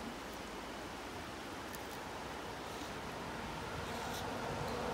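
Steady rushing of a shallow river's current flowing over stones, slowly growing a little louder toward the end.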